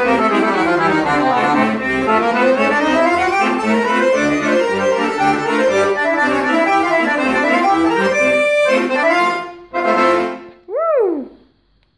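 Piano accordion playing a tune, with runs of notes climbing and falling over repeated bass chords. Near the end it breaks into a few short chords and a brief swooping tone that rises and falls, then stops.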